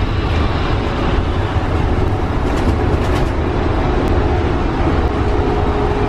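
Cabin noise of a school bus at highway speed: steady engine drone and road rumble, with a faint steady whine through the second half and a few light rattles about two to three seconds in.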